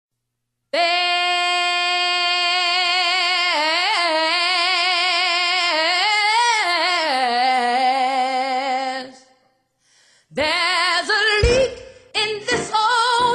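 A woman's voice singing unaccompanied, holding long wavering notes that slide in pitch, fading out about nine seconds in. After a short silence, a gospel song with singing and a beat starts up.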